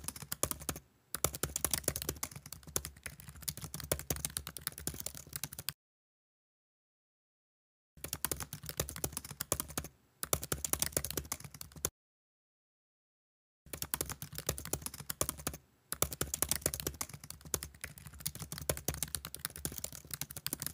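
Computer keyboard typing sound effect: rapid, continuous key clicks in three runs of several seconds, broken by complete silence starting about six and twelve seconds in.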